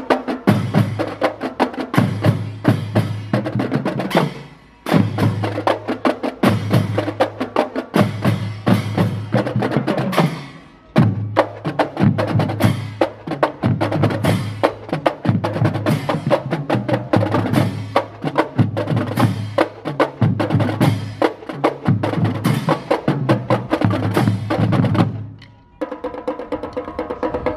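Marching drumline playing a fast routine on snare drums and bass drums, with rapid stick strokes, rolls and sharp clicks over deep drum hits. The playing breaks off briefly three times: about five seconds in, about eleven seconds in, and shortly before the end.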